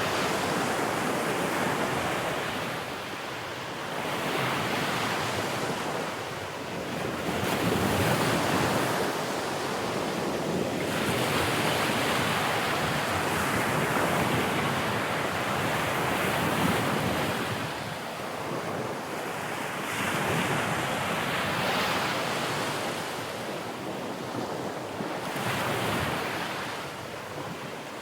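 Sea waves breaking and washing on a shore, swelling and falling back every few seconds, with some wind noise on the microphone.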